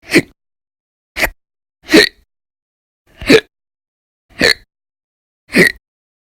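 A person hiccuping loudly, six sharp hiccups in a row about a second apart, part of a persistent bout of hiccups that goes on for hours.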